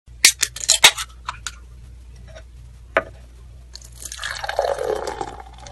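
Liquid poured into a glass for about a second and a half, near the end. Before it come a quick run of sharp clicks with short bursts of hiss in the first second, and a single click about three seconds in.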